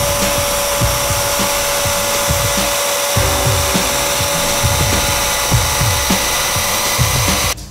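Router with a dust-extraction hose running steadily as it cuts a groove along a rail in solid-surface sheet. It is a constant rushing noise with a steady motor tone, and it cuts off suddenly near the end. Background music plays underneath.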